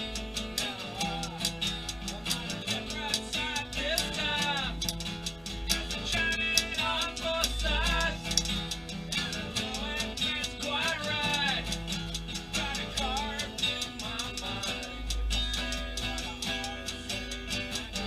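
Acoustic guitar strummed with a man singing, and typewriter keys clacking along throughout as percussion.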